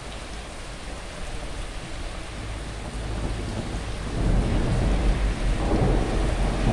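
Rain falling steadily, with a deep rumble swelling up about four seconds in and staying loud.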